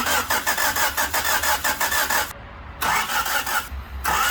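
Starter motor cranking a Honda four-cylinder engine with a quick, even chugging, in three goes, the last beginning near the end. The engine does not catch, because its fuel injectors are disconnected for a spark test.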